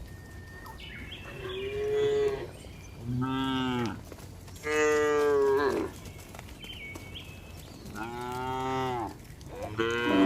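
Cows mooing: about five calls of roughly a second each, some higher-pitched and some deeper, with a short pause between them.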